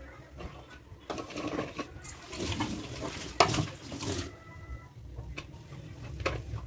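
Green chili broth with chicken boiling hard in a wok: bubbling and popping, denser and louder for about three seconds in the middle.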